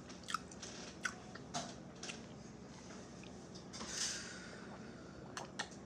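Close-up eating sounds: scattered soft mouth clicks and smacks of chewing, with a short airy hiss about four seconds in.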